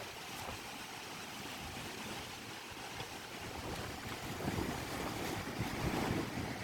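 Heavy monsoon rain falling in a steady hiss, with wind gusting onto the microphone in louder low rumbles from about two-thirds of the way through.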